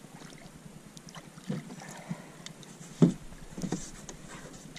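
A few sudden knocks and splashes at the side of a plastic kayak as a large black drum is drawn up alongside by hand. The loudest comes about three seconds in.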